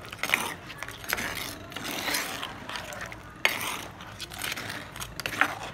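A utensil scraping and knocking against a clay cooking pot as a crab curry is stirred, in an irregular run of scrapes with one sharp knock about three and a half seconds in.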